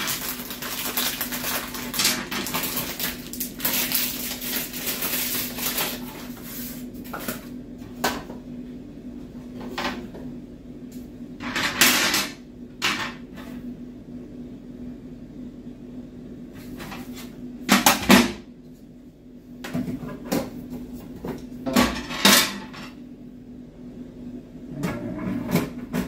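Plastic flush-button parts (mounting frame and actuator rods) being handled on a ceramic toilet lid: several seconds of rustling and rattling, then scattered clicks and knocks, the loudest about eighteen seconds in. A steady low hum runs underneath.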